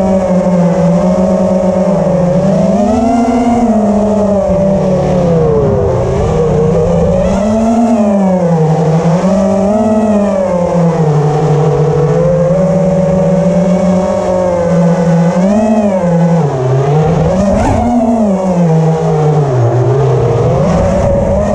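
FPV quadcopter's brushless motors and propellers whining, the pitch rising and falling in repeated swells as the throttle is worked.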